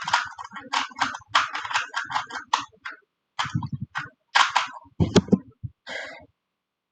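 Rapid, irregular clicking and clattering of small hard plastic parts, with a few heavier knocks, stopping about six seconds in.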